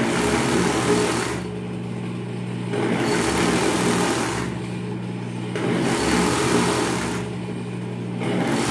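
Industrial overlock sewing machine stitching elastic onto a pajama waistband in four short runs of about a second and a half, stopping and starting between them, over a steady low hum.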